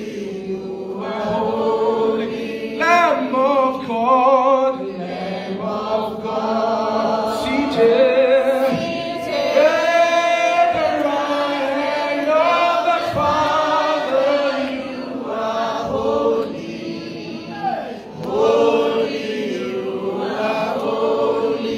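A church congregation singing a hymn together, many men's and women's voices in chorus.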